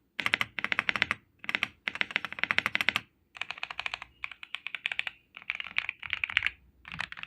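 Typing on a Keychron V1 Max mechanical keyboard with Akko V3 Lavender Purple tactile switches and PBT keycaps: rapid runs of soft key clacks in bursts with brief pauses between them.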